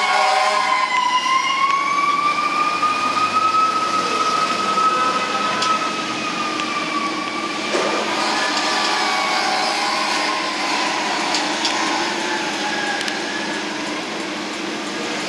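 Fire engine siren wailing in one long slow rise and fall, growing fainter as the truck drives off, over city traffic noise.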